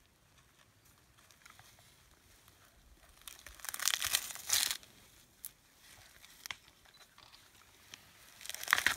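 Dry bamboo-shoot sheaths crackling and tearing as a young mountain gorilla strips them, in two bursts: one about three and a half seconds in, another near the end, with a few single snaps between.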